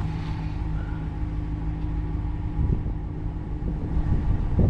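Truck engine idling steadily, with a diesel air heater's fan running as the heater goes through its startup cycle. One of the steady hums drops out a little over halfway through.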